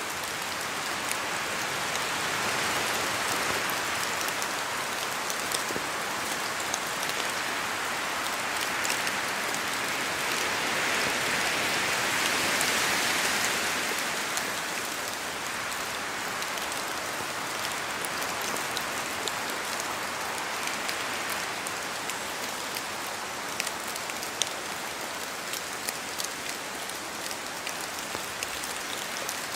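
Steady rain falling through forest trees, with many separate drops tapping on leaves. The rain swells a little louder in the first half, peaking at around 12 seconds.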